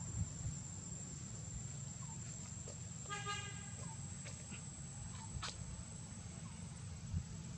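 A vehicle horn toots once, briefly, about three seconds in, over a steady low rumble and a thin high-pitched whine.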